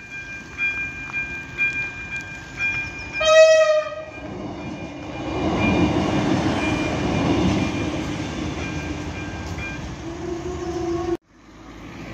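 Level-crossing warning bell ringing in regular strokes, about two a second, joined about three seconds in by a short train horn blast. Then the noise of a passenger train running over the crossing swells and slowly fades, with the bell still ringing under it, before the sound cuts off abruptly near the end.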